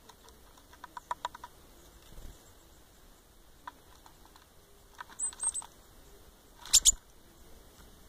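Great tit and blue tit pecking at rolled oats in a plastic bowl: quick runs of small dry taps of beaks on the oat flakes and plastic, with two louder knocks near the end.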